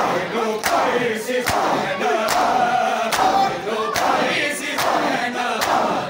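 A crowd of men chanting a Punjabi noha in unison while beating their bare chests with their palms in time. A sharp slap lands on a steady beat about every 0.8 seconds over the massed voices.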